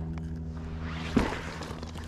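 A single sharp thump about a second in, over a steady low hum.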